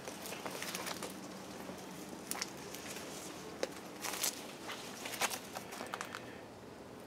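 Footsteps and leaves brushing as someone walks a garden path through dense plants: scattered light crackles and taps that stop about six seconds in.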